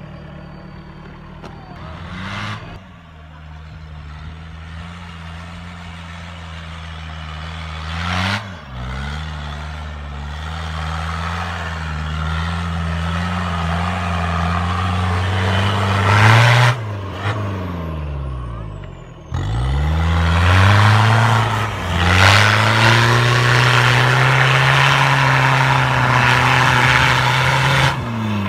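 Toyota Hilux Surf's engine revving hard under load as the truck climbs through deep snow. The revs surge and sag several times and build to a long, loud pull in the second half, with a few brief louder bursts along the way.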